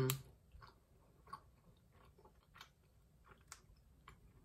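A person chewing a chocolate-coated coconut bar: faint, irregular mouth clicks every half second or so. At the very start there is a brief hum of the voice, falling in pitch.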